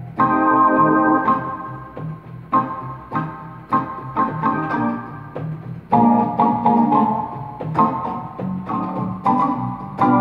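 Portable electronic keyboard played with an organ-like voice: held chords that change every half second to a second, over a repeating low bass pattern.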